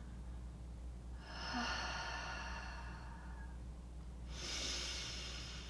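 A person's audible paced breathing: a long breath out lasting about two seconds, then after a short pause a shorter breath in. This is the slow exhale–inhale set-up taken before speaking a phrase in a breath-to-sound warm-up.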